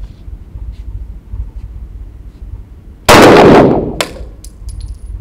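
A single Glock 17 9mm pistol shot about three seconds in, very loud and echoing off the walls of the indoor range for about half a second. It is followed by a sharp click and a few light high-pitched metallic clinks.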